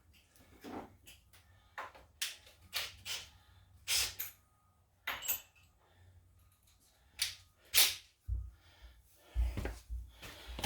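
Irregular clanks and knocks of hand tools being picked up, moved about and set down, roughly one a second, with a few heavier thuds near the end.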